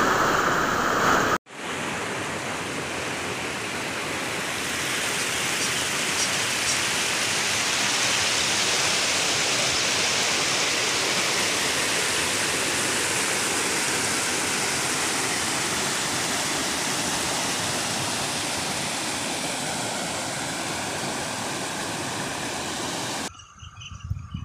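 Muddy floodwater rushing across a field in a steady, loud rush of water, broken by a brief dropout about a second and a half in. Near the end the rush gives way to a much quieter stretch with a few low bumps.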